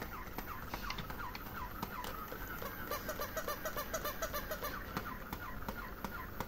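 Battery-powered walking plush bunny toy: quick repeated chirping squeaks, several a second, over the clicking of its mechanism as it hops on a tile floor.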